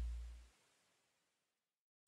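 The tail of background music fading out: a low bass note dies away within about half a second, then silence.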